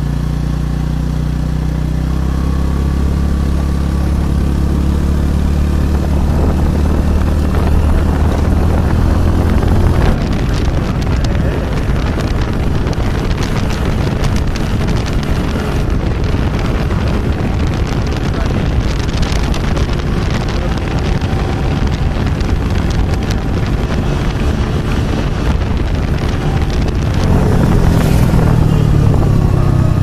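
Motorcycle engine running at a steady cruise while riding, with wind rushing over the microphone. From about ten seconds in the engine note is mostly buried under the wind noise, and it comes through clearly again near the end.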